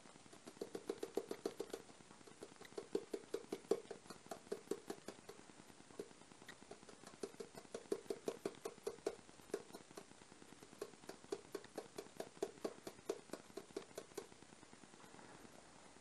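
Runs of rapid light tapping on a bowl, several taps a second, as warabi powder is shaken out of it into a steel bowl on a kitchen scale.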